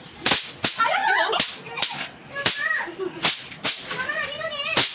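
Paper-twist bang snaps (snap pops) thrown onto a concrete floor, going off one after another in about eight sharp cracks at uneven intervals. Children's voices call out between the cracks.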